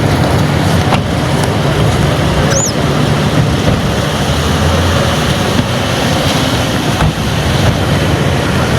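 A vehicle engine running with a steady low rumble. A faint short high chirp comes through about two and a half seconds in.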